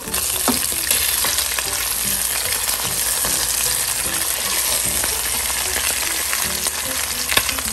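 Fish fillets sizzling steadily as they pan-fry in hot oil. A metal spatula turning the fish gives a few sharp clicks against the pan, the loudest near the end.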